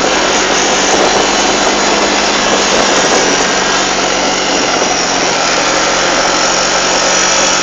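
A motor vehicle's engine running steadily at low speed: a constant hum under a loud, even rushing noise.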